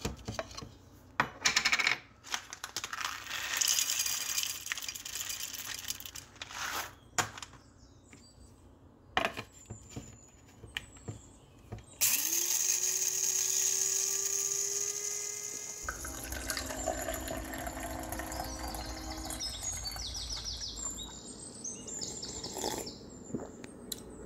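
A run of clicks and clinks, then about halfway in a small electric motor spins up with a loud hiss, its pitch rising and then holding steady for a few seconds, followed by a lower rumble with a few steady tones.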